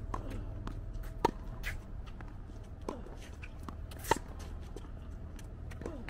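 Tennis ball struck back and forth with racquets in a rally: crisp pops about every second and a half, the nearer player's shots the loudest, over a steady low rumble.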